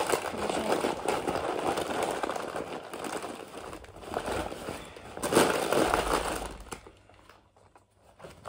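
Rustling and rummaging of a fabric backpack being handled and packed, with a louder burst of crinkly handling about five seconds in, then it goes quiet near the end.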